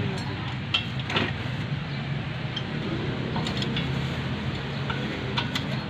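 Scattered sharp metallic clinks and taps of hand tools and steel brake parts as a brake caliper is bolted back on, over a steady low hum.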